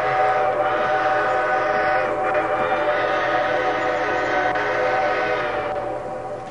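HO-scale model steam locomotive's electronic steam-whistle sound: one long chime blast of several tones held together, fading out near the end.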